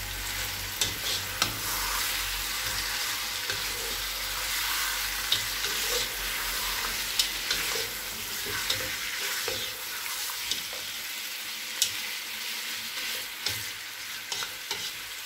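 Mutton chops sizzling in hot oil and ginger-garlic paste in a granite-coated wok as they are stirred and turned with a spatula, with a steady sizzle and scattered scrapes and clacks of the spatula against the pan. The meat is being seared in the first frying (bhuna) stage, until it changes colour.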